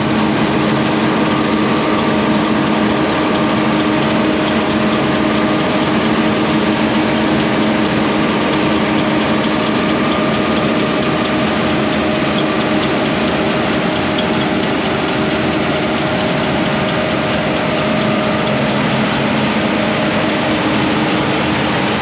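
International Harvester 1480 combine running steadily while harvesting wheat, heard from inside the cab: a constant engine and machinery drone with a few steady humming tones through it.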